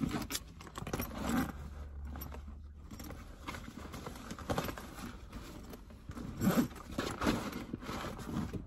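Rummaging through a Fjällräven Kånken fabric backpack: irregular rustling and scraping of the bag and its contents, with a jingle of keys.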